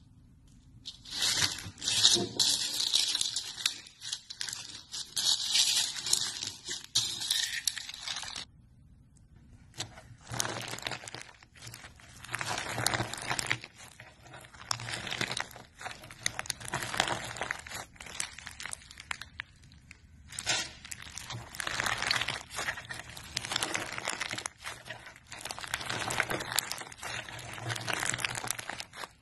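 Slime packed with pink pearl beads and pale beads being mixed and squeezed by hand: crunchy, crackly squishing in repeated waves, with a short pause about nine seconds in.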